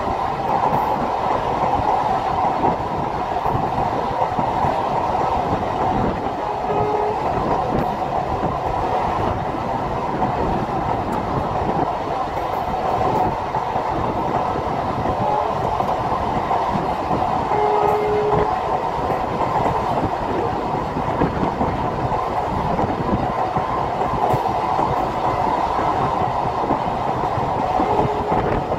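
Passenger train coaches running at speed on an elevated viaduct, heard from an open coach window: a steady, even rush of wheels on rail with rattle from the running gear.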